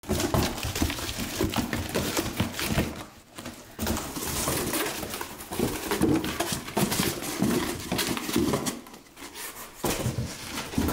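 Cardboard box being handled and packed: rustling, scraping and light knocks of cardboard, with quieter pauses about three seconds in and again around nine seconds.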